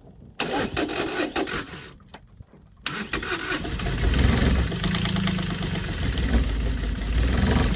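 Small marine diesel engine started after a glow-plug preheat: a short burst of starter cranking about half a second in, a brief pause, then it cranks again and catches about three seconds in, settling into a steady idle.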